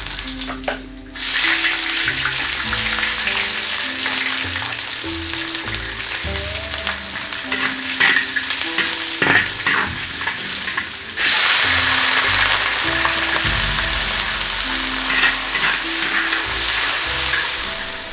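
Oil sizzling in a large cast-iron wok as spices are stir-fried, with a metal ladle scraping and knocking against the pan. About eleven seconds in, the sizzle jumps suddenly louder as chicken pieces go into the hot oil. Light background music plays underneath.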